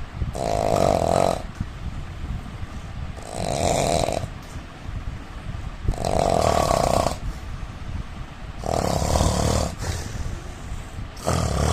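A man snoring, with one snore every two and a half to three seconds, five in all.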